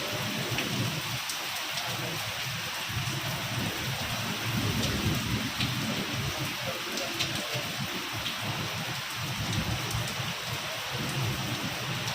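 Heavy rain falling steadily, with scattered sharp drop ticks and a low rumbling flutter underneath.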